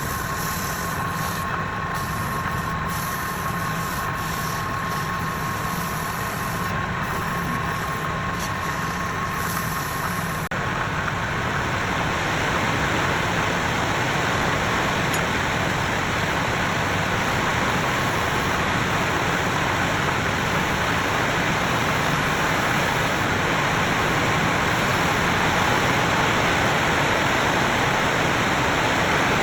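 Woodturning lathe running steadily, with a steady whine in the first part that gives way to a slightly louder, broader rushing noise about ten seconds in.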